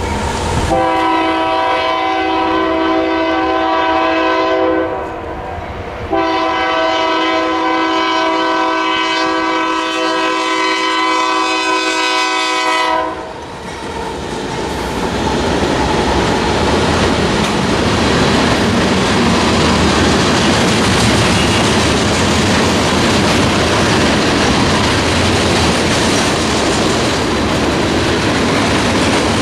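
Freight train's air horn sounding two long blasts, the second about seven seconds long. Then the train passes close by: a consist of GE diesel locomotives (an AC44CW, two Dash-9s and a Dash-8) followed by tank cars rolling over the rails with a steady clickety-clack.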